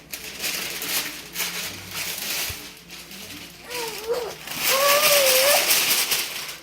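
Parchment paper being crinkled and rustled, loudest in the second half, with a short high squealing voice that rises and falls about four seconds in.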